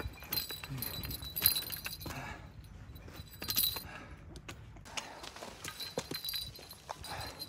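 Footsteps crunching on loose volcanic gravel and rock on a steep climb, with scattered sharp clicks and clinks of trekking-pole tips striking stone.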